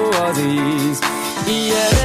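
Background music: a melody over a beat.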